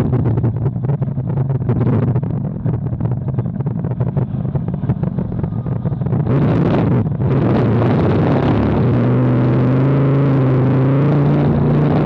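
Racing jet boat's engine running hard at speed, heard from on board, with wind buffeting the microphone and water noise. About halfway through, the buffeting drops away and the sound settles into a steady, even drone.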